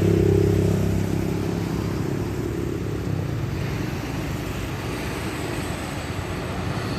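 Large truck's engine running steadily, growing a little quieter over the first few seconds.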